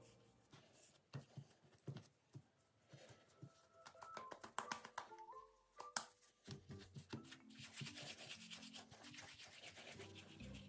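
Hands rolling and patting soft bread dough on a floured counter: faint, irregular pats, rubs and clicks.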